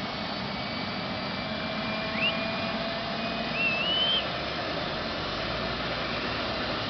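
Helicopter's turbine engine and rotor running steadily on the ground, a constant rushing noise with faint steady tones. Two short whistles, one rising and one wavering, come about two and three and a half seconds in.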